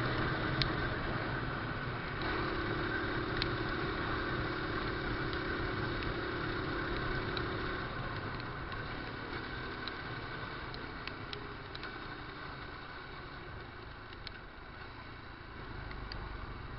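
Honda NX200's single-cylinder engine running under way, with road and wind noise, heard from on board. The sound eases down through the middle and picks up again near the end, and a few sharp ticks are scattered through it.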